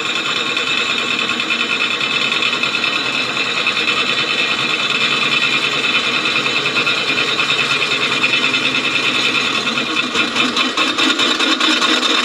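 Bench drill press running at high speed, its twist bit cutting through a square metal tube with a steady whine. About ten seconds in the sound turns uneven and choppy as the bit works deeper.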